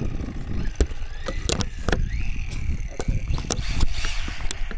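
A Talaria electric dirt bike being ridden off: steady rumble of wind and motion on the microphone, with several sharp knocks and a faint rising motor whine.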